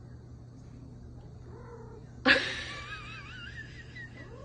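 Domestic cat chirping at a person: a sudden trilling call about two seconds in that warbles up and down in pitch for about two seconds.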